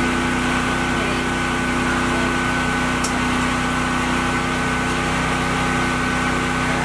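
A motor-driven machine running with a steady hum and a constant high whine.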